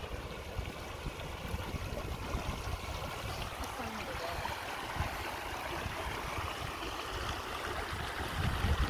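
Steady running water of a stream, with low wind rumble on the microphone.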